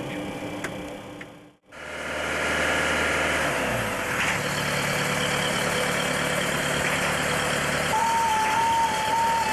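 Steady machinery noise in a Boeing 727 cockpit. About a second and a half in, the sound cuts out briefly, then comes back louder with a low hum that shifts a few seconds in. Near the end a continuous tone sets in, alternating between two close pitches.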